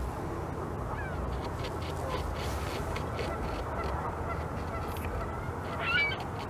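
Beaver gnawing on a branch, its chisel-like incisors rasping and clicking against the wood in short, irregular strokes over steady background noise. A bird calls briefly about six seconds in, the loudest sound.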